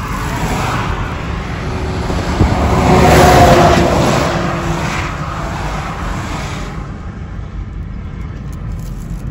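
Steady road and engine noise of a car travelling on a highway. A louder rush swells to a peak about three seconds in and then fades.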